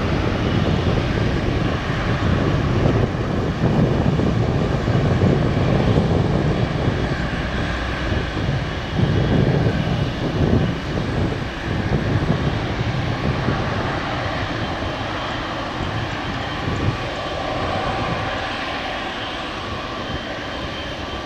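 Boeing 777-300ER's twin GE90 jet engines at taxi power: a steady jet roar with a thin fan whine above it, swelling and then easing off gradually over the last third.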